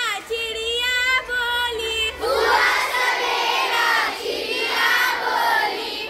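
A schoolgirl sings a line of a Hindi children's poem alone. About two seconds in, a group of girls sings the next part together, louder and fuller.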